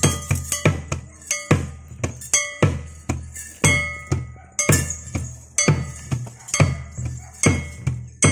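Theyyam percussion: chenda drums beaten with elathalam hand cymbals clashing in a fast, steady rhythm, the cymbals ringing briefly after each stroke over the low drum beats.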